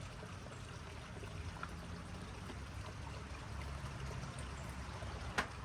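Faint, steady low rumbling background noise, with a single sharp click near the end.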